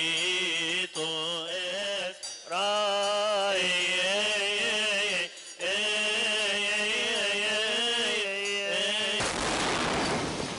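Male voices chanting a Coptic Orthodox Palm Sunday hymn in long, wavering held notes, with short pauses between phrases. About nine seconds in, the chant cuts off abruptly into a harsh rushing noise as the church bomb goes off and the recording breaks up.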